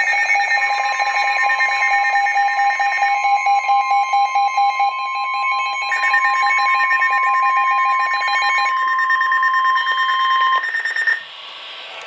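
Several NOAA weather radios, Midland units among them, sounding their tornado-warning alarms together: overlapping rapid electronic beeping. Under a second in, a long steady tone joins, the weather radio's 1050 Hz warning alert tone. It stops about ten seconds in, and the alarms drop away soon after.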